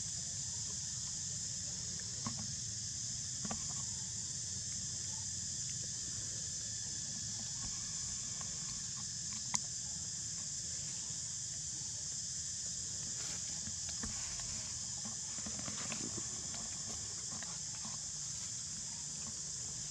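Steady high-pitched drone of insects in the trees, with a low rumble underneath. A few faint taps and rustles, and one sharp click about halfway through.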